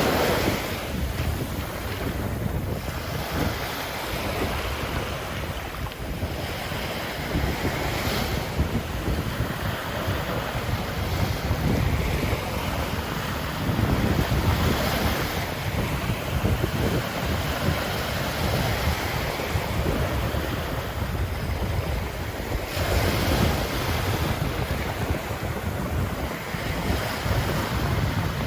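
Ocean surf breaking and washing up a sandy beach, a continuous rush of water swelling louder every few seconds, with wind buffeting the microphone as a low rumble.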